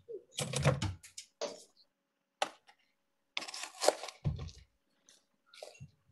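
A string of short clattering knocks and scrapes as crushed Oreo cookie is put into a glass, heard in broken bursts over a video call.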